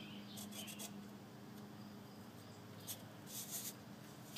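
Faint rustling and rubbing of fabric being pressed onto a tin bucket, in a few short scratchy bursts.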